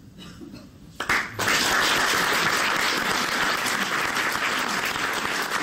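Audience applause breaking out suddenly about a second in and going on as steady, dense clapping.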